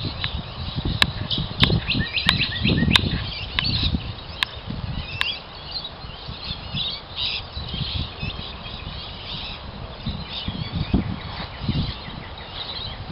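Small birds chirping and twittering over irregular low thumps, with a run of about seven sharp clicks, evenly spaced, in the first five seconds.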